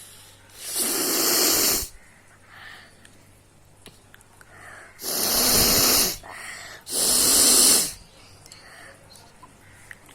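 A person blowing their nose hard three times, each forceful blast of air about a second long, with quieter breaths between.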